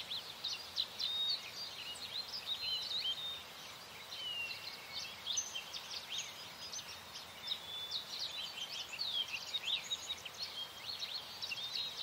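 Many small birds chirping and twittering at once, a busy chorus of quick, high, thin calls that keeps going without a break.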